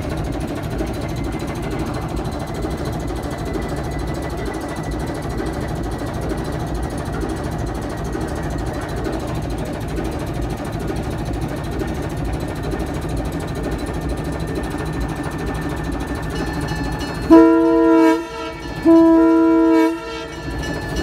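Diesel locomotive 1055 of the Downeast Scenic Railroad moving slowly at close range, its engine and wheels giving a steady rumble. About three-quarters of the way through, its chime horn sounds two blasts, the second a little longer.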